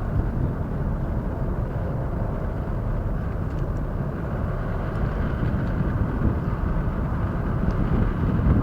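A large ferry's engines giving a steady low rumble.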